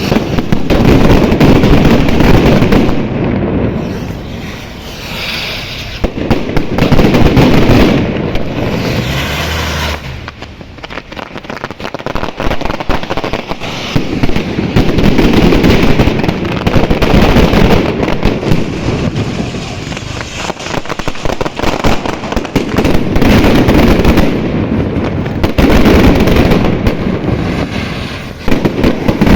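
Fireworks going off in a dense, rapid barrage of cracks and bangs. They come in several loud waves, with short lulls between them.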